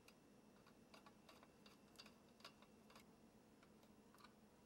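Near silence broken by about a dozen faint, irregular small clicks: a Phillips screwdriver turning a mounting screw through a CPU cooler's bracket into its mounting plate, snugging it down.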